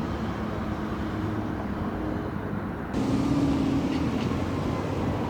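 Steady road and engine noise of a moving vehicle, which gets suddenly louder about three seconds in.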